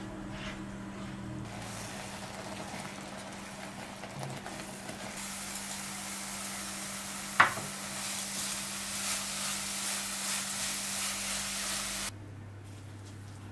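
Coconut and milk mixture sizzling in a nonstick pan on a portable gas burner while a silicone spatula stirs it. The sizzle grows louder about halfway through, with a single sharp tap, and drops off suddenly near the end.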